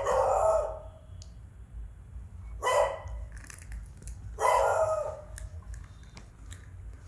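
Adult beagle barking off-camera: three loud barks, a couple of seconds apart.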